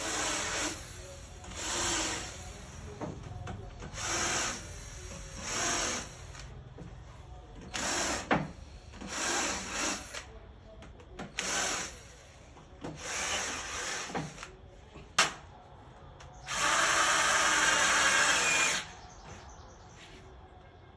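Cordless drill biting into a wooden frame in about a dozen short bursts of under a second each, then one longer steady run of about two seconds near the end. A sharp click falls between the bursts.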